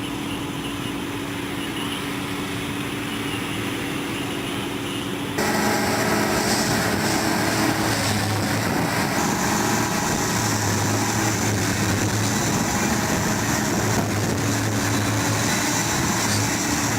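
Steady engine running, with an abrupt cut about five seconds in to a louder, different engine sound.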